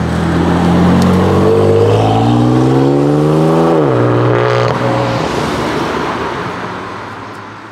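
BMW M3 F80's twin-turbo inline-six with an iPE valved exhaust pulling away: the engine note climbs for about two seconds, drops suddenly about four seconds in, then holds steady and fades into the distance.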